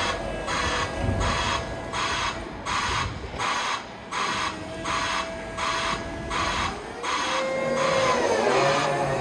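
Niftylift HR17 boom lift's motion alarm beeping steadily about twice a second over a thin steady whine, the warning that the machine is moving. About seven seconds in the beeping stops and a louder, wavering sound with sliding pitches takes over.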